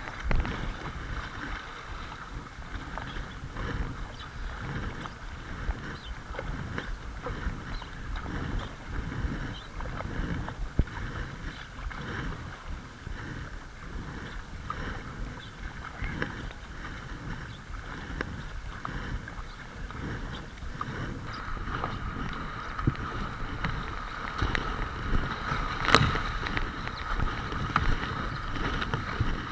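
River water rushing and splashing along a kayak's hull as it runs down small riffles, with paddle strokes in the water and wind buffeting the microphone. One sharp knock stands out near the end.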